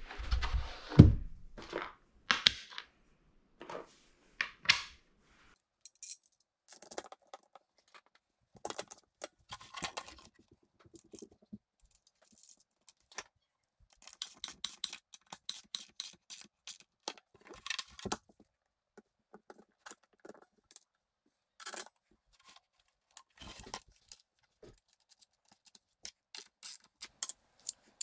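Loose metal bolts, washers and brackets clinking and rattling as they are handled, with scattered knocks as a captain's chair seat base is turned over and set down on a rug. There is a heavy thump about a second in.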